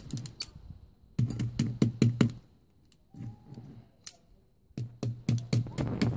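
Locking pliers breaking apart a sand-and-cement casting mould on concrete: quick runs of sharp clicking knocks and crumbling grit, in several bursts with short pauses between.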